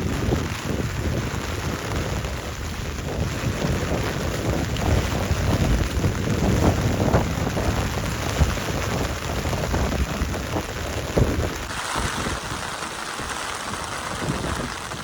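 Heavy rain with gusting wind, a dense rushing noise with a heavy low rumble that surges and falls. About three quarters of the way in the sound changes abruptly to a thinner, higher hiss.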